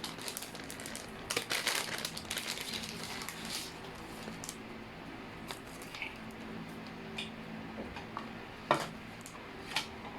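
Plastic wrapping crinkling for a few seconds as small parts are unpacked, then several separate light clicks and taps of plastic pieces being handled.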